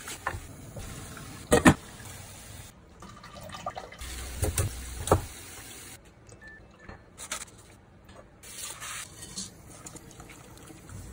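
Kitchen handling sounds: a few sharp knocks of utensils and containers, the loudest about a second and a half in, then liquid being ladled over raw rice in an enamelled cast-iron pot near the end.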